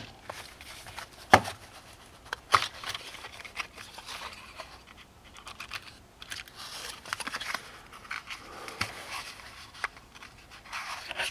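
Small cardboard ammunition boxes being handled by hand and set down on a concrete floor: scattered taps and a couple of sharper clicks in the first few seconds, then a longer patch of light rustling and ticking about halfway through.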